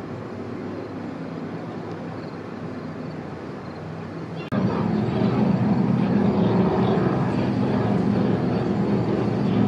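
Racing powerboat engines running at speed, a steady drone. About four and a half seconds in, the sound cuts abruptly to a louder drone.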